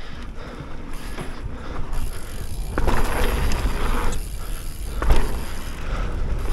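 Mountain bike being ridden on dirt: tyres rolling, with wind rumbling over the microphone, louder from about three seconds in, and a thump about five seconds in.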